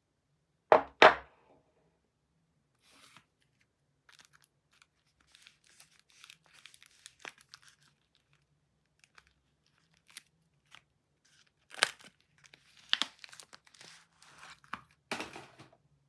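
Two sharp knocks about a second in, then faint crinkling. From about twelve seconds in comes a run of loud ripping and crinkling as the wrapper of a bar of soap is torn open.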